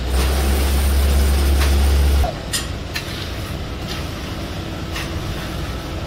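A heavy engine runs steadily on a concrete pour. A loud low rumble for the first two seconds cuts off suddenly, then a quieter steady rumble continues, with a few short scrapes of the tool in the wet concrete.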